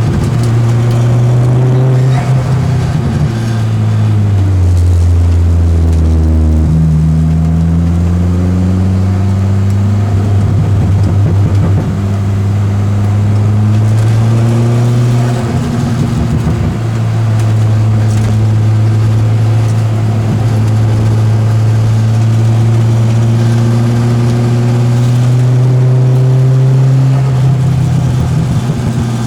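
A Peugeot 205's engine being driven hard, held at high revs with repeated breaks in the note. Between about 4 and 7 seconds in, the revs drop steeply and then climb again.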